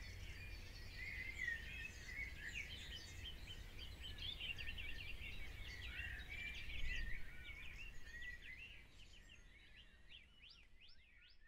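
Many small birds chirping and twittering together over a low rumble that drops away about two-thirds of the way through; the sound fades toward the end.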